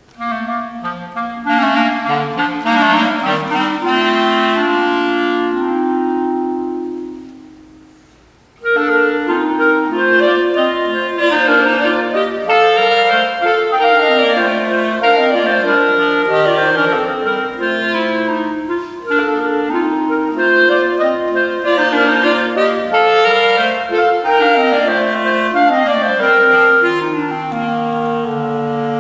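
Clarinet trio playing in three-part harmony. A held chord dies away about seven to eight seconds in, then after a brief pause all three come back in with busy, interweaving lines.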